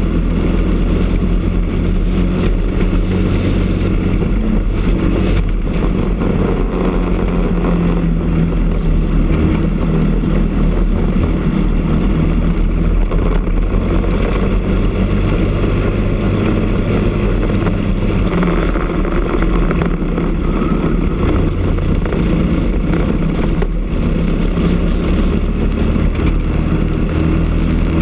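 Briggs & Stratton LO206 kart engine, a single-cylinder four-stroke, running hard at high revs, heard close up from on board the kart. Its pitch shifts a little as the kart speeds up and slows through the corners.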